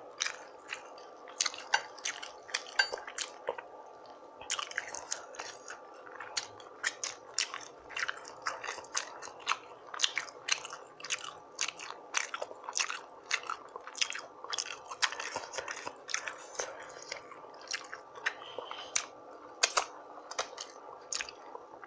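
Close-miked wet chewing and lip smacking of a person eating rotisserie chicken in sauce, a steady run of sharp smacks several times a second.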